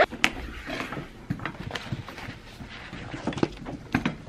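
Packing up a laptop: a zippered laptop case and a bag handled on a wooden desk, with scattered knocks, clicks and rustles at uneven intervals.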